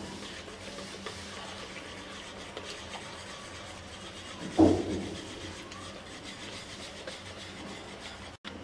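Hand whisk stirring thick flour-and-milk pancake batter in a bowl: a steady soft scraping and squelching. A single dull thump comes about halfway through.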